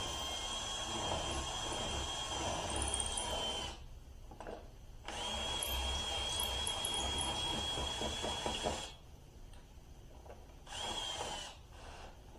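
Electric drill boring a dowel-pin hole in wood, its motor giving a steady whine. It runs, stops for about a second, runs again for nearly four seconds, then gives one short burst near the end.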